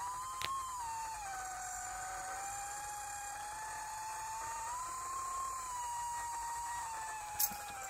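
Diatone GT2-150 mini-quad's brushless motors whining in flight, one steady pitch that rises and falls slowly as the throttle changes. A short click comes about half a second in, and a louder one near the end.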